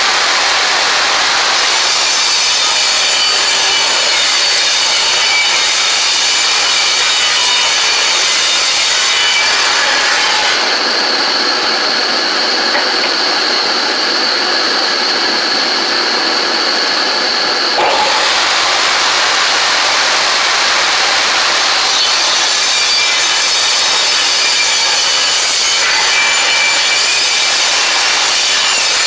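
A corded woodworking power tool running at full speed and cutting lumber with a loud, steady noise. From about ten seconds in until about eighteen seconds it runs without load as a steady high whine, then it bites into the wood again.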